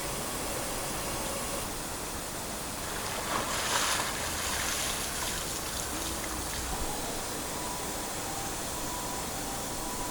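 Steady rush of running water, with a brief louder surge about three and a half seconds in.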